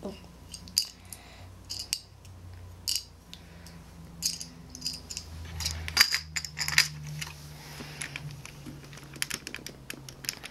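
Small plastic Lego pieces clicking and rattling against each other as they are handled and fitted together, with a busier, louder run of clicks about six seconds in.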